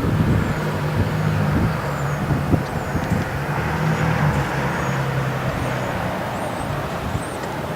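A vehicle engine idles close by over a steady wash of parking-lot traffic, with faint high chirps above it.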